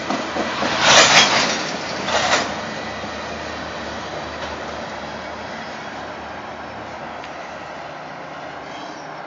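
Freight train of tank cars and covered hoppers rolling past, with steady wheel-and-rail noise that slowly fades as the cars move away. Two short, louder bursts of noise come about one and two seconds in.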